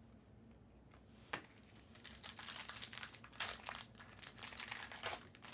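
Foil trading-card pack wrapper crinkling as it is torn open and handled, with one sharp click about a second in.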